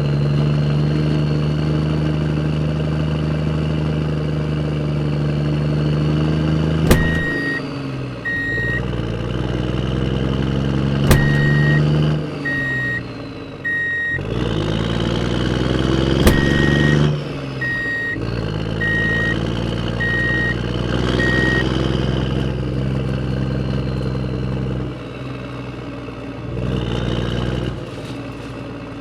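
Truck engine running and changing pitch as it revs up and down, with a reversing alarm beeping in short runs of two to five beeps. Each run begins just after a sharp click.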